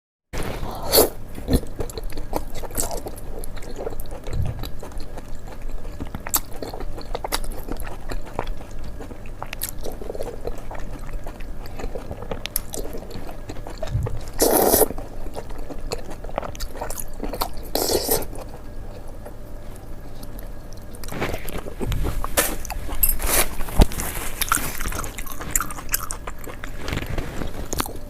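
A person eating close to the microphone: wet chewing with repeated crunchy bites, a few louder crunches among them.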